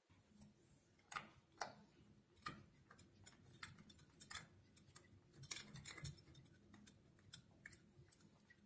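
Faint, irregular clicks and small taps from hands working a CPU cooler and its mounting hardware on a motherboard.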